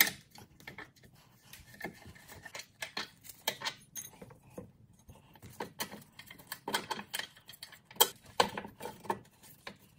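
Irregular light metallic clicks and clinks as a wrench works the nut off a rear lower control-arm bolt and the nut and washer are handled by hand.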